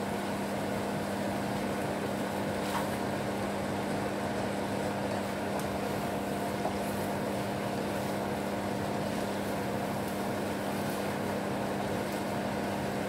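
Steady mechanical hum under a faint sizzle, with a few light scrapes of a wooden spatula tossing flat rice noodles in a frying pan.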